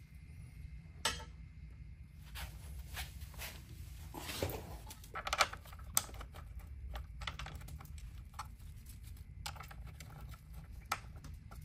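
Light clicks, taps and rustling of bolts being fitted by gloved hands into the motor mounts, with sharper clicks about a second in, around six seconds and near the end. A steady low hum runs underneath.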